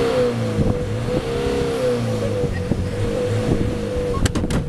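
Safari vehicle's engine running and revving, its pitch rising and falling again and again. About four seconds in, a quick series of sharp knocks sets in.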